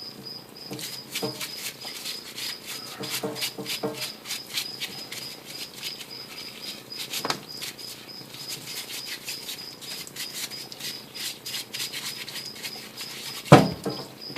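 Scattered light clicks and knocks from the worn change gears of an Atlas lathe being handled and rocked on their studs, showing their play, with a louder thump near the end. A steady, evenly pulsed high chirp runs underneath.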